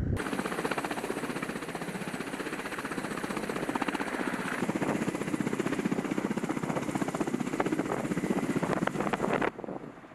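Kamov Ka-52 attack helicopter in flight, its coaxial rotors making a rapid, even chop. The sound cuts off abruptly near the end, leaving only a much fainter rotor sound.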